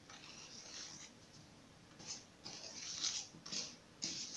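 Spatula stirring and scraping a thick egg-yolk and sugar cake batter in a plastic bowl: soft, scratchy swishes in irregular strokes, a few louder ones in the second half.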